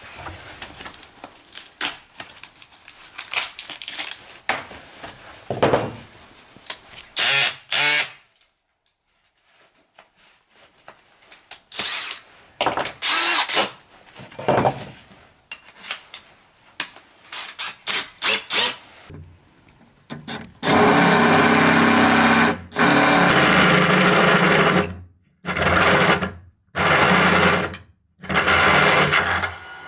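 Tool handling and clicks as a drill bit is taken from its case, then a DeWalt cordless drill runs in about five short bursts over the last ten seconds, boring through the corrugated steel wall of a shipping container.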